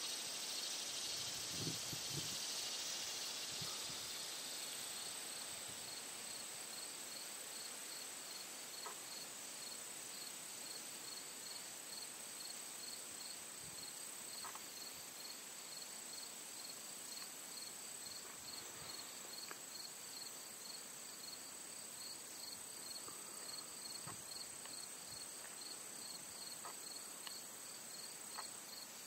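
Insects calling: a steady high-pitched drone, with another insect chirping in an even pulse of about two chirps a second, and a few faint ticks.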